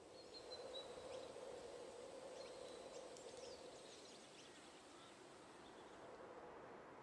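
Very faint outdoor ambience: a few scattered bird chirps and short whistles over a soft, steady hum.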